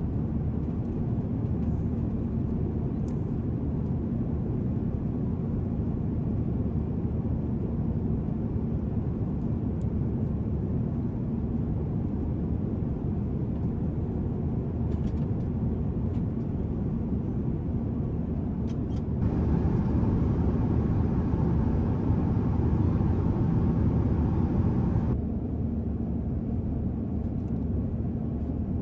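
Steady low rumble of an airliner's cabin noise from its engines and airflow. About two-thirds of the way in, a louder hiss joins for about six seconds and then cuts off.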